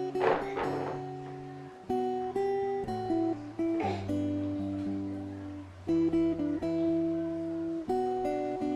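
Background music: acoustic guitar playing slow chords, each held for a second or so before the next.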